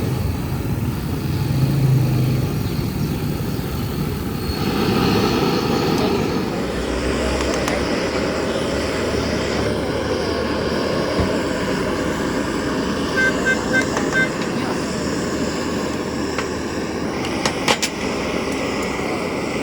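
Steady traffic and street noise, with a quick run of four high beeps about 13 seconds in and a couple of sharp knocks near the end.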